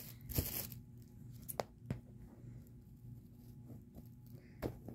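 A Doorables toy box being handled and opened: a short rustle of tearing packaging about half a second in, then a few sharp clicks and taps.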